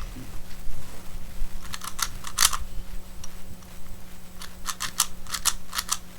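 Plastic Rubik's Speedcube being turned by hand: its layers clack in quick runs, a short cluster about two seconds in and a fast string of clicks near the end. The turns catch instead of corner-cutting cleanly.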